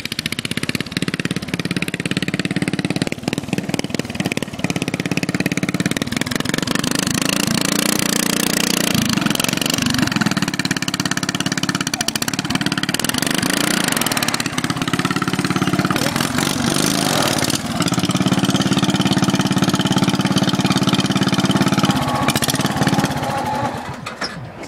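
Racing lawnmower's engine running hard, its pitch rising and falling with the throttle, then dropping off shortly before the end.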